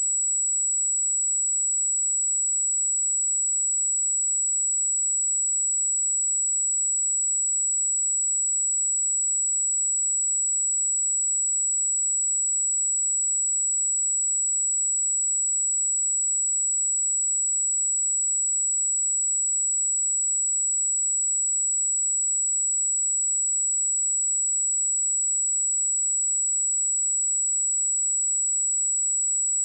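A steady, unbroken 7824 Hz sine-wave test tone: a single very high pure pitch held at constant level, used for testing speakers and headphones.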